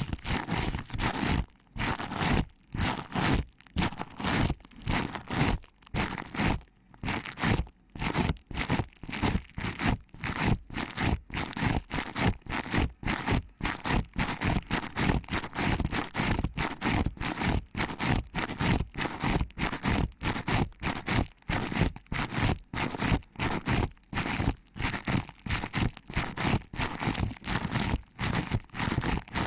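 Fingers pinching and rubbing a binaural microphone's ear in quick, irregular strokes, giving a crackly rustling and scraping sound.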